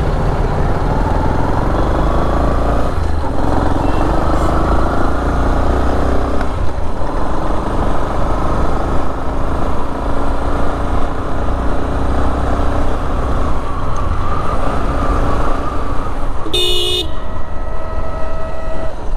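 Riding a motorbike through town traffic: a steady engine and road rumble, with a short horn toot near the end.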